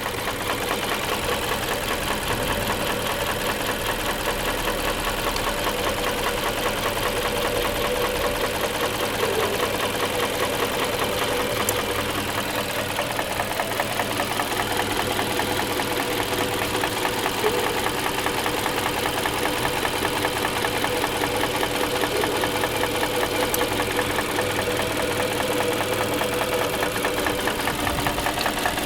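Mazda 6 GJ's 2.5 litre four-cylinder petrol engine idling with a steady, rapid knock, while the cylinders are cut out one at a time to find the cause. The knock is still there with the second cylinder out, and the engine runs rough and shakes.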